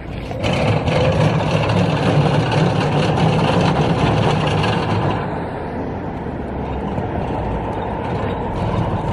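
BT Optio OSE120CB electric order picker driving across brick paving: steady drive-motor and wheel rolling noise, louder for the first half and a little quieter after about five seconds.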